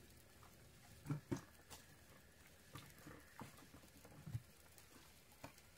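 A few faint, scattered knocks and taps from gear being handled among shoreline rocks, the loudest two close together about a second in, over a quiet hiss.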